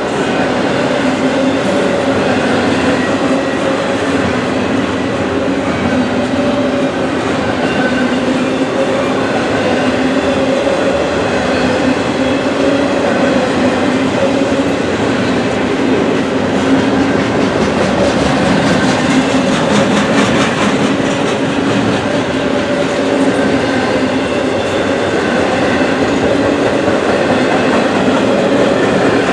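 Norfolk Southern freight train cars rolling past with a steady rumble and hum, the wheels clicking over the rail joints, with a denser run of clicks about twenty seconds in.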